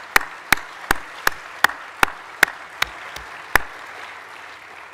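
Audience applauding at the end of a talk. One clapper close to the microphone stands out with loud, evenly spaced claps, nearly three a second, until about three and a half seconds in. The applause then dies away.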